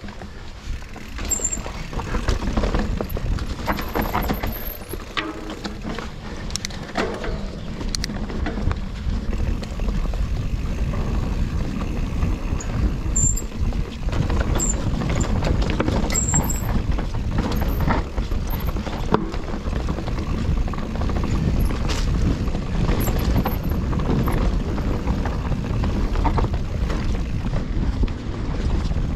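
Mountain bike riding down a dirt trail: a steady rumble of tyres and wind, with frequent rattles and knocks from the bike over bumps.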